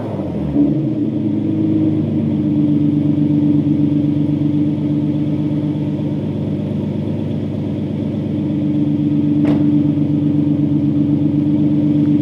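Nissan 370Z's 3.7-litre V6 idling after a cold start, heard at the custom 3-inch single side-exit exhaust. It drops back from a rev to a steady idle in the first second or two. There is a brief click about nine and a half seconds in.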